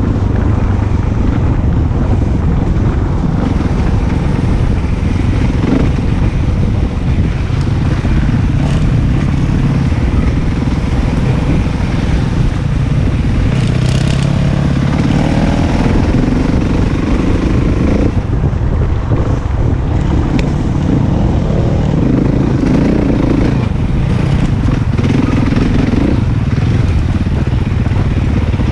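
Enduro motorcycle engine running continuously as it is ridden off-road, its revs rising and falling with the throttle.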